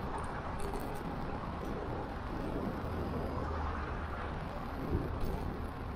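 Steady city road traffic heard from a moving bicycle, with wind rumbling on the microphone. A short knock comes about five seconds in.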